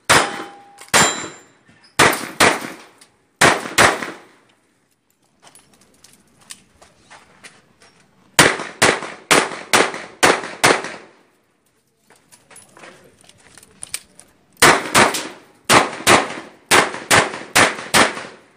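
Smith & Wesson 929 9mm revolver fired rapidly in three strings of shots, mostly in quick pairs, with pauses of a few seconds between the strings. A short metallic ring sounds after one shot about a second in.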